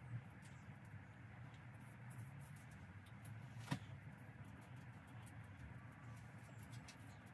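Near silence: a low steady hum with faint scattered clicks and rustles of hand work on a steel frame, and one sharper click about three and a half seconds in.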